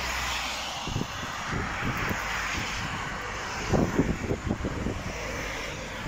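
Wind buffeting the microphone in irregular low thumps, thickest about midway through, over a steady outdoor rushing noise.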